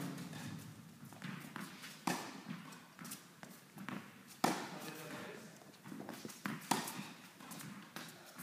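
Tennis racket striking the ball three times, about every two seconds, with quick light footsteps and smaller ball bounces on the hard court between the hits.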